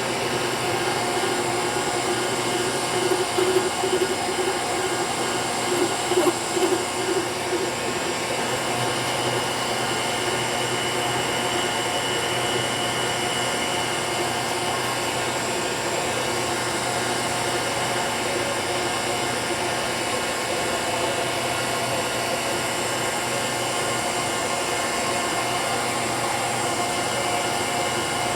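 ProtoTrak CNC milling machine running with its cutter working through an aluminum block. The machine noise is steady and even, with a louder, uneven stretch of cutting between about three and seven seconds in.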